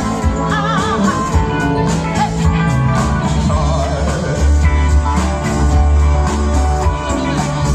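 Live band playing a soulful blues song with a steady beat and bass, with a singer's wavering voice over it.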